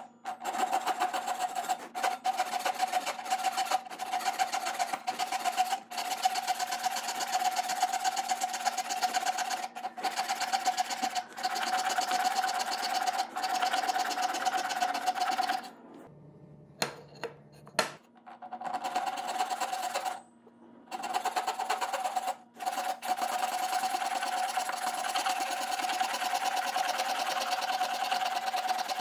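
Hand saw cutting white oak in rapid, steady strokes, with a few short pauses past the middle.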